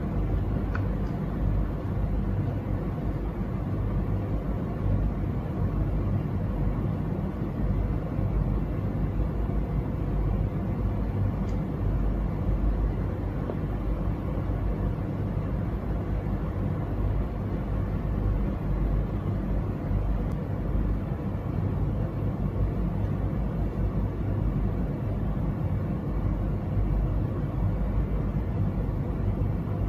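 Steady low hum and rumble of background noise, unchanging throughout, with no distinct events.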